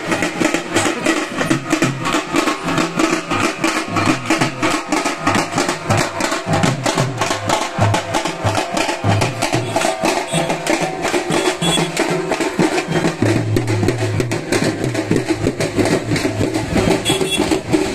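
Instrumental stretch of a Telugu song: fast, steady drumming with other instruments and no singing.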